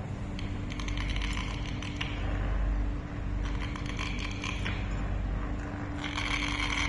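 Caged budgerigars chattering in three bursts of quick chirps and clicks, over a steady low hum.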